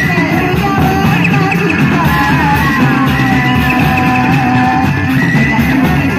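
Loud music accompanying a reog dance, played through loudspeakers: a wavering melodic lead over steady, dense percussion.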